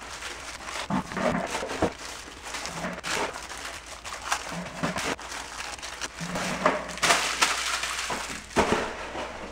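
Irregular crinkling and crunching of cracker packaging and crackers being handled, with scattered sharp cracks throughout.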